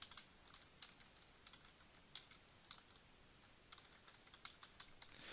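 Faint typing on a computer keyboard: quick key clicks in uneven runs, with a short pause a little after halfway.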